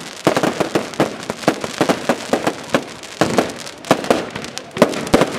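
Aerial fireworks bursting overhead: a dense, irregular run of sharp pops and crackles several times a second, with a few louder reports standing out.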